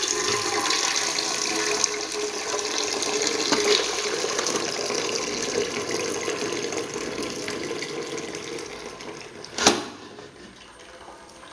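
Rice cooking water pouring in a stream from a tilted pressure cooker, drained through the gap of its gasket-less lid into a metal pot; the pour slowly thins toward the end. A single sharp knock sounds near the end.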